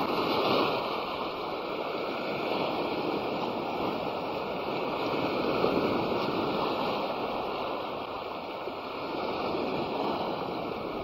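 Small waves washing on a shore: a steady rushing noise that swells and eases every few seconds.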